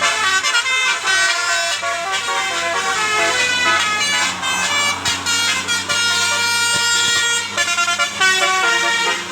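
Bus 'basuri' telolet musical air horn playing a quick melody of short pitched horn notes, over a steady low hum.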